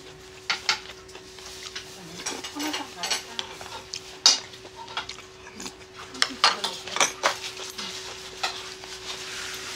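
Metal chopsticks and utensils clinking and scraping against dishes while food is picked up, in a dozen or so scattered sharp clicks, the loudest about four seconds in. A steady low hum runs underneath.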